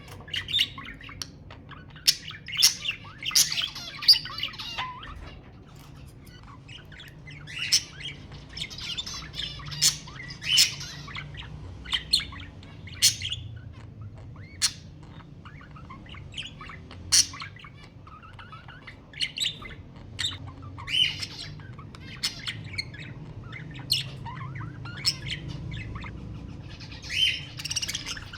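Budgerigars chattering and warbling, with sharp chirps and squawks at irregular intervals.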